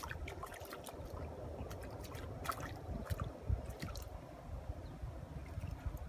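A hooked tilapia splashing and thrashing at the water's surface as it is dragged through bankside weeds, with scattered sharp splashes and drips over a low rumble.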